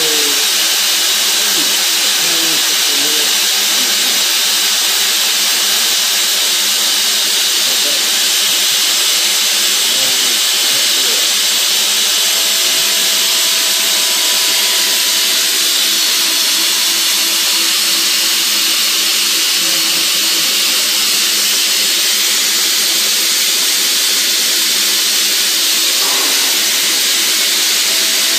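Fadal VMC-15XT CNC mill with a Lyndex 5:1 speeder head spinning a 1/16-inch carbide two-flute end mill at 20,000 rpm, cutting gear teeth into a Delrin rod. A steady high hiss and whine.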